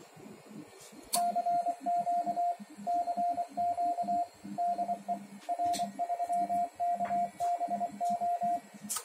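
Morse code: the CW sidetone of a Yaesu HF transceiver, one steady mid-pitched tone keyed in dots and dashes while the rig transmits CW, starting about a second in and stopping near the end. A sharp click comes as the keying starts and another just after it stops.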